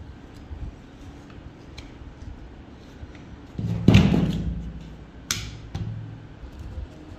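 Steel parts of a light machine gun receiver being handled: small metal clicks, a louder knock with a short low ring about four seconds in, and a sharp click just after five seconds.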